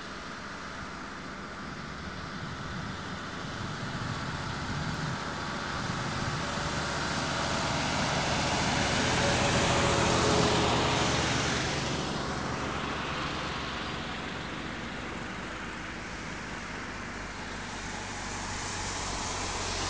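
A road vehicle approaches and passes on a wet, snow-covered road, its tyre hiss and engine swelling to a peak about halfway through, dropping in pitch as it goes by, then fading away.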